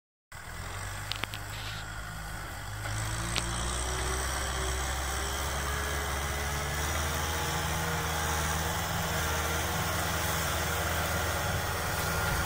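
Kubota M6040 SU tractor's four-cylinder diesel engine running steadily under load while pulling a disc plough through dry ground. It gets louder about three seconds in, with a couple of sharp clicks near the start.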